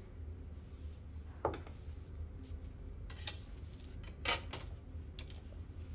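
A few light clinks and knocks of a drinking glass and a glass bottle being handled at a table, the loudest about four seconds in, over a steady low hum.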